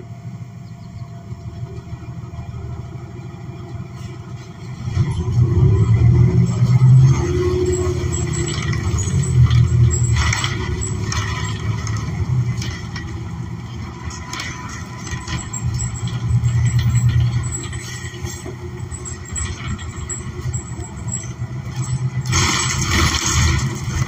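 A New Flyer XN40 bus's Cummins Westport ISL G natural-gas engine, heard from inside the passenger cabin. It idles quietly at first, then about five seconds in the bus pulls away and accelerates, the engine rising and swelling several times as the bus gains speed, with road rumble and body rattles.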